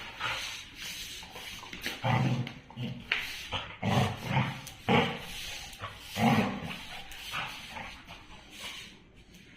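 A dog vocalising in about five short outbursts, a second or so apart, protesting while its bone is being taken from it: resource guarding.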